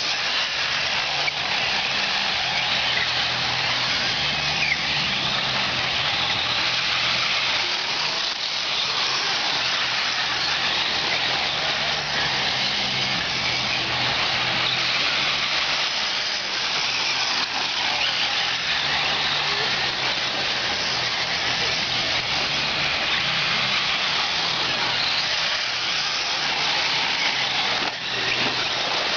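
Racing vehicles running steadily, with a constant noisy wash, faint high whines rising and falling, and voices in the background.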